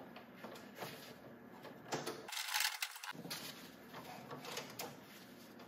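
Faint handling noises: light clicks and rustling as a gloved hand moves the breaker's white neutral pigtail and wires inside a metal electrical panel, with a brief louder scrape about halfway through.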